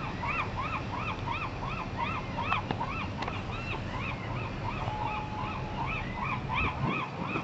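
A flock of gulls calling, a fast run of short yelping calls, about three a second, from several birds at once. Wind rumbles on the microphone underneath.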